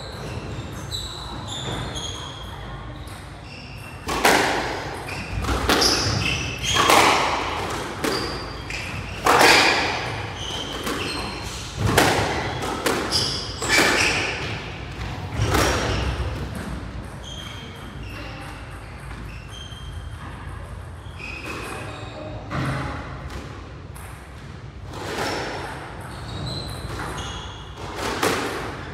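Squash rally: the ball cracks off rackets and the walls in a run of hard strikes every second or two, thinning out in the second half, with shoes squeaking on the court floor and the sound ringing in the walled court.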